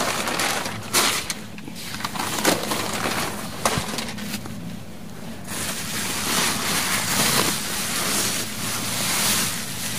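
Newspaper and bubble wrap rustling and crinkling as gloved hands pull and fold them, with a few sharp crackles.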